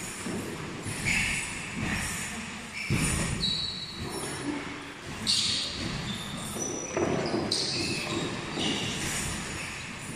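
Boxing shoes squeaking on the ring canvas during footwork, with short high squeaks about every second and scattered thuds from steps and punches.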